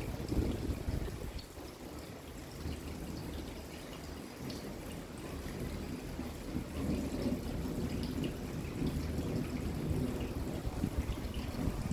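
Steady rain falling, with water trickling and dripping close by. A low, uneven rumble runs underneath and grows a little stronger in the second half.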